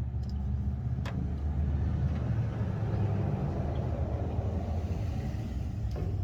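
A low, steady engine-like mechanical hum that swells louder for a few seconds in the middle. Two sharp clicks, one about a second in and one near the end.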